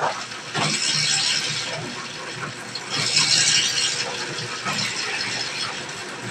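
Electric dough roller (sheeter) running, its metal rollers working a sheet of bread dough. It gets louder in two spells, about a second in and again around three seconds in.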